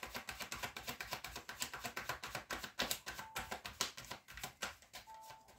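Tarot cards being shuffled by hand: a rapid, uneven run of soft card slaps and clicks that thins out and fades near the end.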